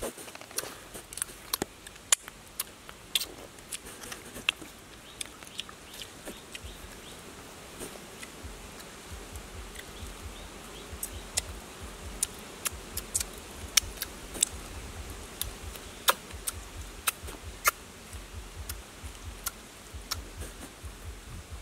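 Scattered small clicks and crackles, irregular and close, of grilled fish being torn apart and eaten by hand over a bed of leaves.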